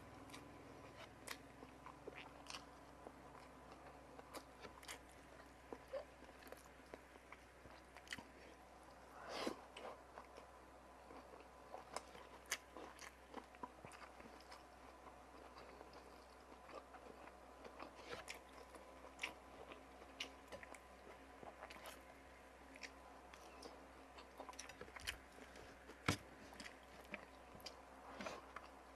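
Quiet close-miked eating sounds: a person chewing, with scattered short wet clicks and small crunches.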